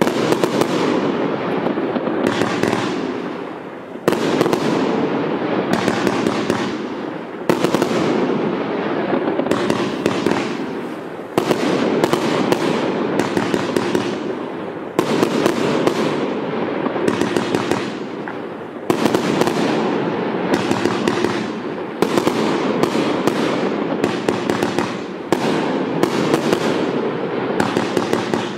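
A multi-shot multicolour fireworks cake firing shell after shell. There are sharp launch thumps and bursts about once or twice a second, each followed by a crackle of stars.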